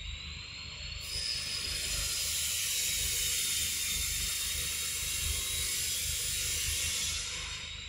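Loud, high-pitched insect buzzing, swelling about a second in and fading near the end.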